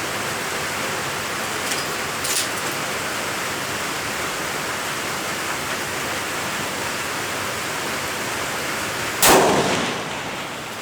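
Steady rain hiss, then a single loud rifle shot about nine seconds in from a 6 Creedmoor Howa 1500 bolt-action rifle, dying away over about a second.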